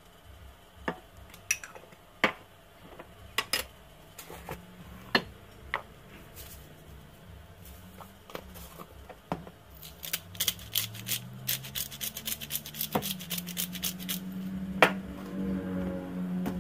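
A metal spoon tapping against a plastic food container, with scattered clicks and knocks of jars and lids being handled. About ten seconds in comes a quick run of rapid clicks lasting a few seconds, like seasoning being shaken from a shaker jar, and a low hum rises near the end.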